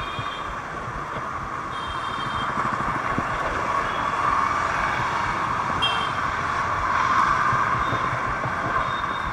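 Steady road and wind noise picked up by a bicycle's handlebar camera while riding through town traffic. Several short high-pitched beeps are dotted through it.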